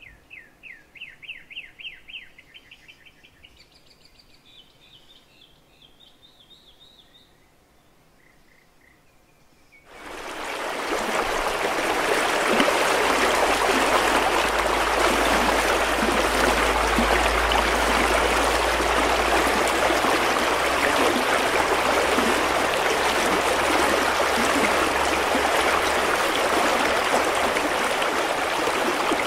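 A small bird sings a fast trill of falling notes, then a few higher chirps. About ten seconds in, the sound cuts abruptly to a loud, steady rush of running water, a stream or waterfall, with a low rumble underneath.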